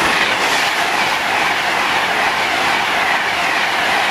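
Class 390 Pendolino electric train passing at speed: a loud, steady rush of wheel and air noise.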